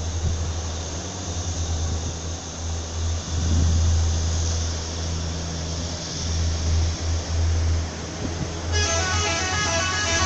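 A large bus's engine running with a steady low drone, then about nine seconds in its multi-tone 'telolet' air horn starts playing a quick melody of short stepped notes.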